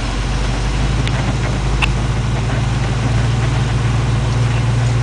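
A 1930s Studebaker Coupe Express's flathead six-cylinder engine runs at low speed with a steady, even drone.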